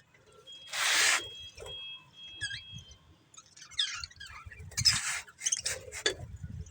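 Budgerigars chirping and chattering: a loud harsh screech about a second in, thin whistled notes and short warbled chirps, then a run of scratchy squawks near the end.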